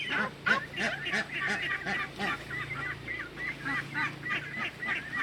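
A flock of domestic waterfowl calling, with many short overlapping calls several times a second, over a steady low hum.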